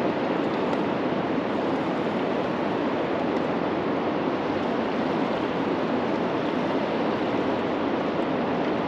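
Steady rushing of river water below a lock and dam, an even wash without pitch or breaks.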